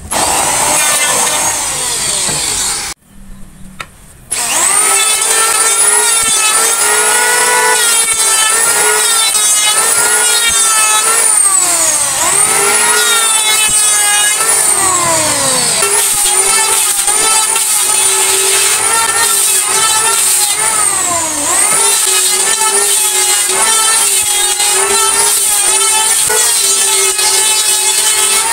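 Electric woodworking power tool running and cutting wood, its motor pitch sagging and recovering again and again as it takes the load. The sound cuts out abruptly about three seconds in and resumes a second later.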